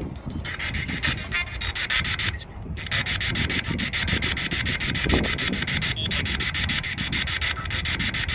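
Spirit box radio sweeping through stations: a steady hiss of static with a fine, rapid stutter as it steps, cutting out briefly a few times, over a low rumble.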